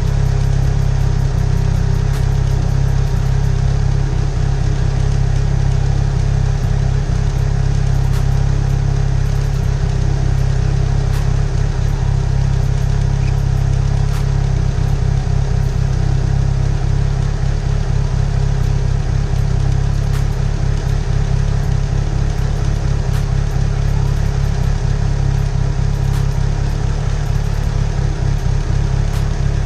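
Mitsubishi Eclipse GSX's turbocharged four-cylinder engine idling steadily, running on fresh oil after an oil change.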